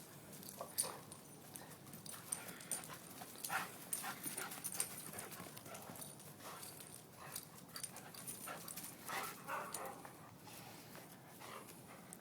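A dog moving about, with irregular small clicks, taps and brief rasps, a few of them sharper.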